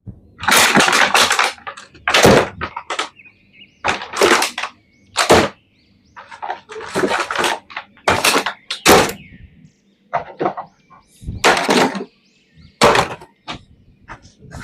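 Toy packaging being handled and opened, crackling and rustling in about a dozen short bursts with brief pauses between.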